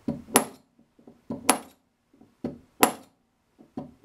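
Lead .20 calibre air rifle pellets being pushed one at a time through a stainless steel pellet sizing die with a probe. Each stroke gives a dull knock and then a sharp metallic click, about once every 1.2 seconds, three strokes in a row.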